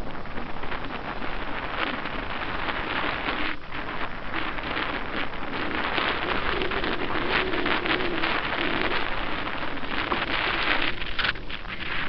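Choppy lake water splashing and lapping at the shore in a strong wind, with gusts on the microphone. In the middle part the faint, wavering whine of the RC jet boat's small electric motor runs under the splashing.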